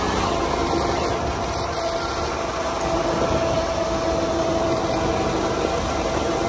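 Modified riding lawn mower's engine running steadily at cruising speed, holding an even pitch, with wind and road rumble from travelling down a paved road.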